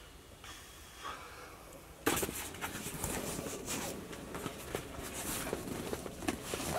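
Close, irregular rustling and clicking from people shifting and handling gear inside a pop-up hunting ground blind, starting suddenly about two seconds in after a near-quiet start.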